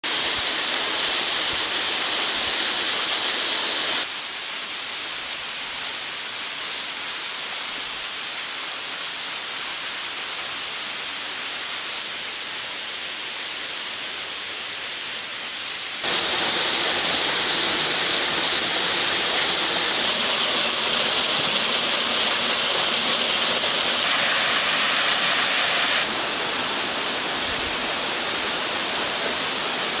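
Two-tiered waterfall, about 65 m high, with water pouring and splashing in a steady rush. The rush drops in level about four seconds in and comes back up about sixteen seconds in, shifting slightly again near the end.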